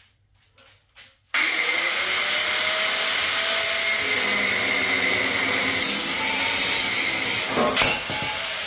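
Angle grinder with a cutting disc starting about a second in and then cutting through a metal motorcycle exhaust pipe, a loud, steady grinding whine. There is a brief louder burst near the end.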